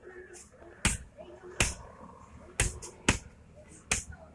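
Hammer blows on a Mahindra Bolero pickup's steel leaf spring laid on a steel anvil post: about five sharp metallic strikes at uneven intervals, each with a brief ring.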